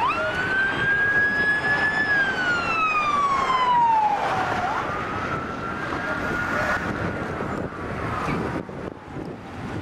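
A siren wailing. It rises sharply in pitch at the start, holds, and slides down over a couple of seconds. It climbs again about four and a half seconds in, then fades as it slowly falls.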